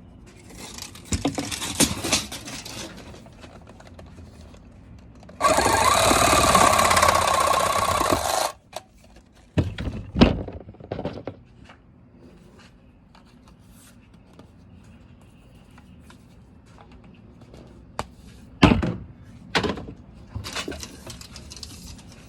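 Plastic knocks and clatter from PVC storage tubes and their end caps being handled. About five seconds in, a loud, steady rasping noise runs for about three seconds and is the loudest sound here.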